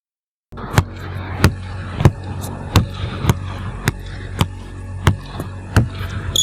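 Intro of background music: a steady beat of sharp percussive knocks, about one and a half a second, over a low hum, starting about half a second in.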